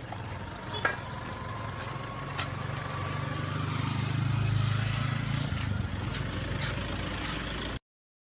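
A motor vehicle's engine running on the street, a low hum that grows louder toward the middle and eases off, with a couple of sharp clicks early on; the sound cuts off abruptly near the end.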